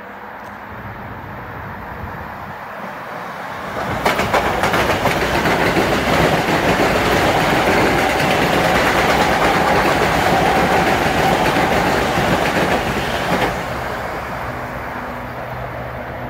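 A Metro-North M8 electric multiple-unit train passing through, its wheels clacking over the rail joints. The noise builds for about four seconds, stays loud for about ten seconds as the cars go by, then drops off suddenly as the last car clears.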